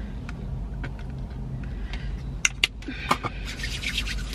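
Hands rubbing together with hand sanitizer, with a couple of sharp clicks about two and a half seconds in, over the low steady rumble inside a car's cabin.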